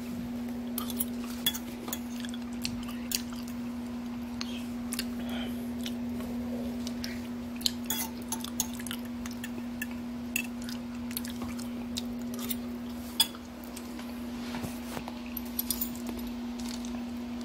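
A metal spoon stirring and clinking against a ceramic bowl of baked beans, with scattered sharp clinks and scrapes, over a steady low electrical hum.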